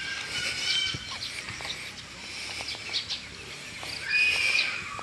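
Birds chirping: short high whistled calls, the loudest about four seconds in, with a few faint clicks.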